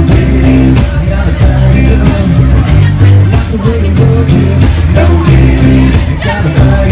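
Live band playing an R&B groove on electric bass, acoustic guitar and electric guitar, with the bass notes loudest and a woman singing.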